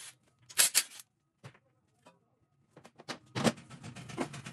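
Clinks, knocks and clatter of hand tools and metal engine parts being handled while a 1.4 petrol engine is taken apart. There is a brief clatter just before a second in, then near silence, then a few sharper knocks about three seconds in.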